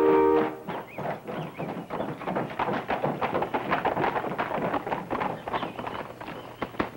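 A brass fanfare ends on a held chord about half a second in. Then horses' hooves clip-clop on a stone courtyard in a quick, irregular patter as several riders walk in.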